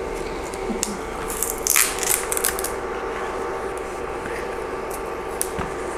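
Cardboard eyeshadow palette being pried and broken apart with a spatula and fingers: scratchy scraping and crackling of cardboard, densest about two seconds in, with a few sharp clicks later.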